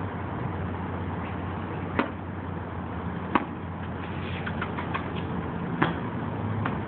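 Three sharp knocks, about two, three and a half and six seconds in, over a steady low background rumble; the last is a tennis ball bouncing off concrete.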